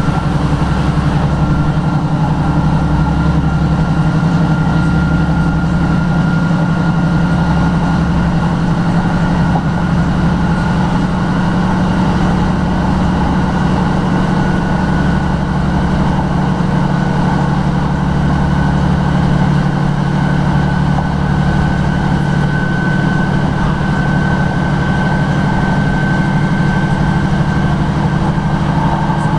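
A Class 156 Sprinter diesel multiple unit heard from inside the carriage while under way. Its underfloor Cummins diesel engine runs steadily with a low throb, and a high whine slowly rises in pitch over the rumble of the wheels on the track.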